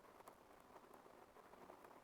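Near silence, with a few faint crackles of bubble wrap plastic being handled.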